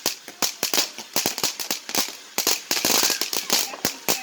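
Consumer fireworks going off in a rapid, irregular string of sharp bangs and pops, with crackling between them.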